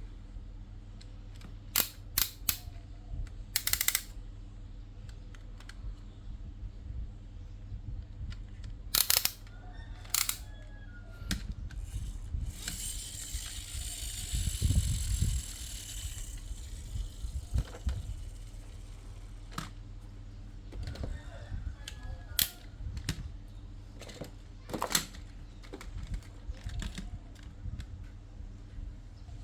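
Handling of toy vehicles and their packaging: scattered sharp plastic clicks and knocks, with a louder rustle of packaging from about halfway through lasting a few seconds.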